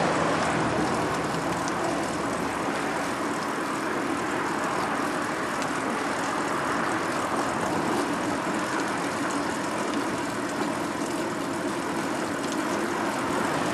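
Steady rushing wind and road noise from riding a recumbent bicycle, mixed with traffic on the highway alongside.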